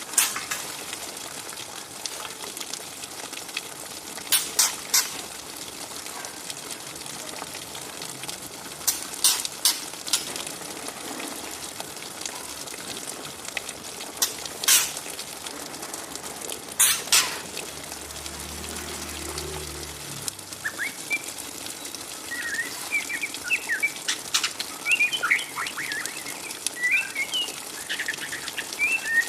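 Juvenile white-rumped shama chattering in quick, short twittering notes (the 'ngriwik' of a young murai batu), which become dense and continuous in the last third. Earlier there are a few scattered sharp clicks over a steady background hiss.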